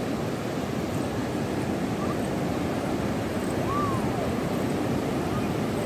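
Ocean surf washing steadily onto a sandy beach, a continuous rushing noise, with wind buffeting the microphone.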